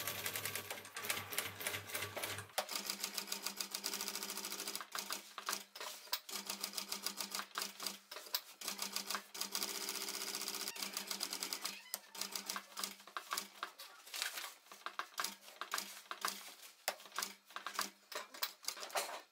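Industrial sewing machine stitching through canvas and a leather tab. A steady motor hum runs under rapid needle strokes, and in the last several seconds the stitching slows to separate, spaced stitches.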